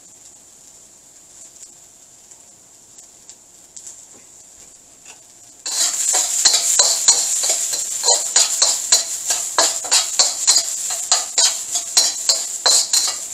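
Minced garlic and onion sizzling quietly in oil in a wok, being browned. About halfway through, a metal spatula starts stirring: quick scraping and clinking strokes against the wok, a few a second, over much louder sizzling.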